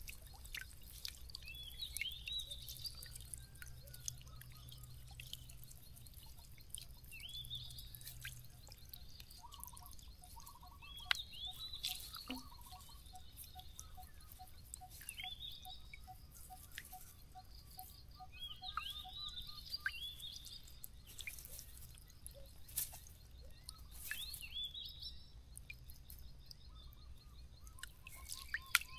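Water dripping in scattered drops from a wet mesh shrimp trap as it is worked and emptied into a mesh bag over the water.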